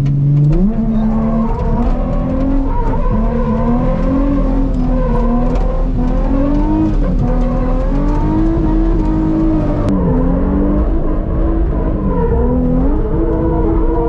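Nissan 350Z's 3.5-litre V6 revving hard while drifting: it climbs steeply about half a second in, then stays at high revs, rising and falling in pitch with the throttle and dipping briefly twice near the end.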